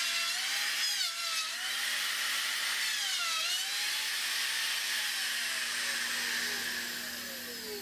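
Router motor running with its bit cutting a circle through wood, the motor's pitch dipping and recovering as the bit takes load. In the last couple of seconds the pitch glides down and the sound fades as the router winds down.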